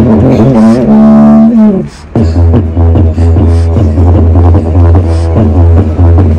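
Giant didgeridoo droning with a steady low fundamental under rhythmic pulsing overtones. About a second in, a higher held tone rises over the drone and glides down, the sound breaks off briefly around two seconds, then the rhythmic drone picks up again.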